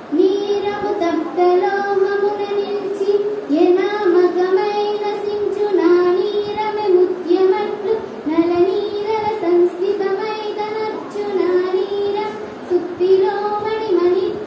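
A child's solo voice singing a Telugu padyam, a metrical verse, in a slow melodic recitation with long held notes and short breaths between phrases.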